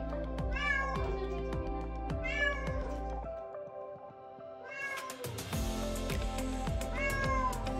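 Black-and-white domestic cat meowing four times while being washed in a tub, each meow falling in pitch at its end. Background music with a steady beat plays underneath.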